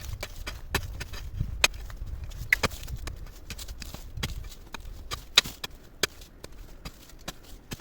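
Irregular sharp clacks and knocks of hard objects, roughly one or two a second, over a low rumble that fades about halfway through.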